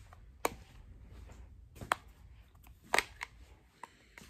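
Plastic handling noise with a few sharp clicks, the loudest about three seconds in, as the screw-on battery cap of a toy lightsaber hilt is twisted by hand and will not come loose.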